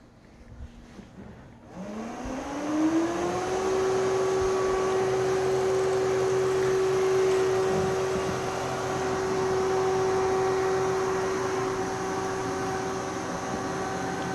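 Robot vacuum cleaner starting up: about two seconds in, its motor spins up with a rising whine, then runs with a steady whirring hum.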